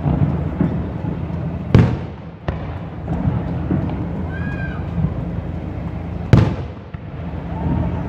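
Aerial fireworks shells bursting: two loud booms about four and a half seconds apart, each with an echoing tail, and a smaller crack just after the first. A steady low rumble runs beneath, and a brief high tone sounds about halfway through.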